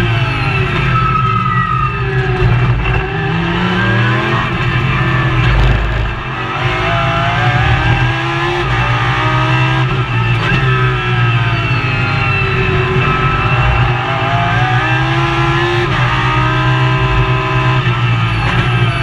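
Lamborghini Super Trofeo race car's V10 engine heard from inside the cockpit at racing speed. The revs climb and fall again and again as it accelerates through the gears and downshifts under braking for corners.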